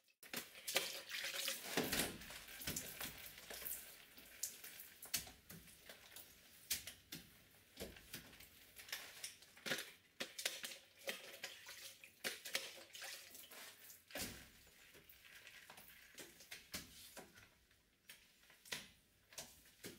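Microfiber mop on a long pole scrubbing wet glass greenhouse panes with warm disinfectant solution: faint, irregular wet swishes and wipes.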